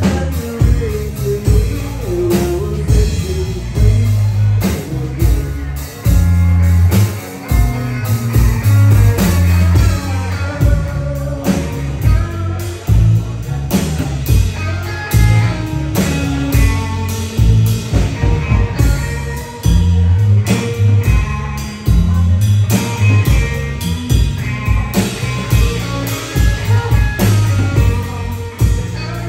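Live band music: electric guitar played over bass guitar and a drum kit, with regular drum hits.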